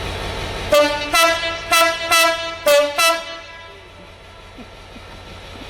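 Train horn sounding six short blasts on two notes in quick succession, over a steady low rumble.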